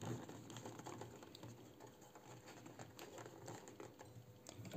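Faint, scattered clicks and rustles of thick leather being handled and set under the presser foot of a Singer 66 sewing machine.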